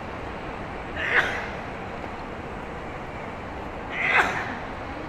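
Steady city street background noise, broken by two short, sharp cries about three seconds apart.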